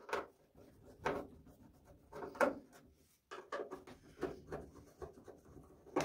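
Screwdriver turning screws out of a microwave's sheet-metal outer cover: irregular scraping and rasping with a few sharp clicks of the tip on the screw and metal.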